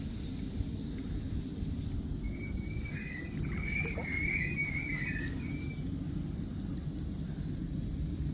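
Outdoor ambience: a steady low rumble like wind on the microphone, with a brief chattering bird call in the middle.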